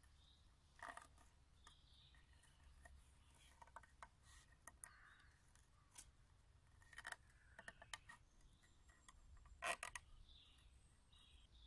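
Faint scratching and small clicks of thin cord being wrapped and pulled tight around a log joint, rubbing on the bark, in irregular bursts; the loudest is a short cluster of clicks near the end.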